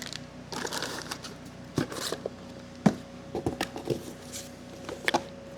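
Parts and packaging from a brake kit being handled: soft rustling and a few light, sharp clicks and knocks, the loudest about three seconds in.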